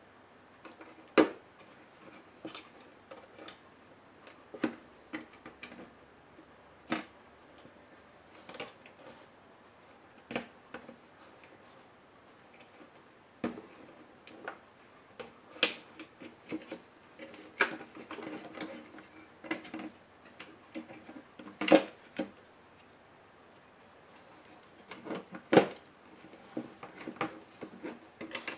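Scattered, irregular clicks and taps of a small screwdriver and plastic and circuit-board parts being handled as an Asus Eee PC 701SD netbook's motherboard is unscrewed and freed from its plastic base. The loudest taps come a little past the middle and a few seconds before the end.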